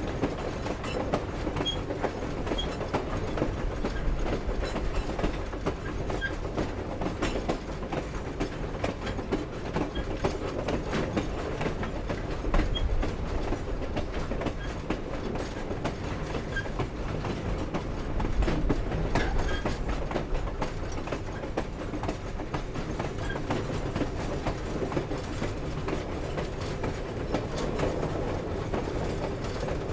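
Grand Canyon Railway train rolling along behind steam locomotive 4960: wheels clicking and clattering on the rails and the cars clanking over a steady low rumble. The sound swells briefly twice, about halfway through and a few seconds later.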